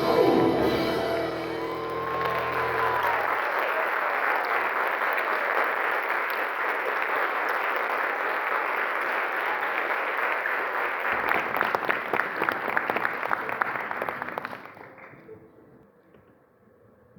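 An orchestra of Andean and Latin American instruments ends a piece on a held final chord, and the audience breaks into steady applause. About three-quarters of the way through, the applause fades out quickly to near silence.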